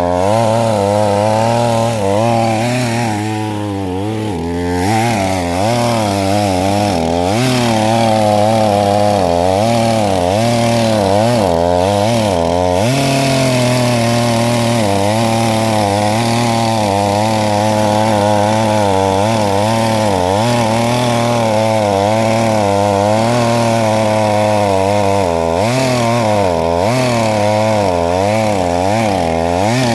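ZimAni 450 petrol chainsaw running at full throttle, cutting into the trunk of a standing tree near its base. The engine note rises and falls continuously as the chain bites into the wood.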